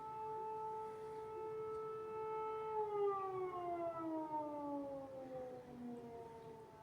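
Civil defense (air-raid warning) siren howling on one steady pitch, then winding down with a steadily falling pitch from about three seconds in.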